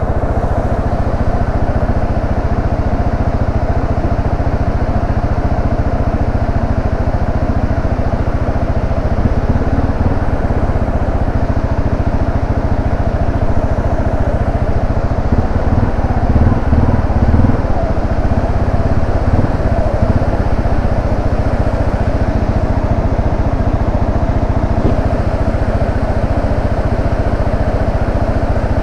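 Yamaha Serow 250's air-cooled single-cylinder engine running steadily as the trail bike is ridden at an easy pace along a forest road. A stronger low rumble comes in for a couple of seconds past the middle.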